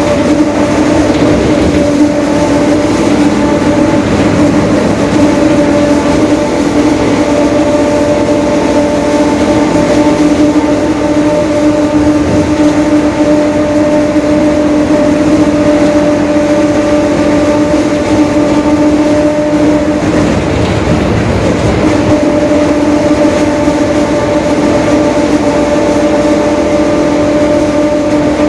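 Mercedes-Benz OF-1721 Bluetec 5 bus under way: its four-cylinder diesel and road noise under a loud, steady whine at a level pitch from a growling (roncando) differential. The whine fades briefly about twenty seconds in, then comes back.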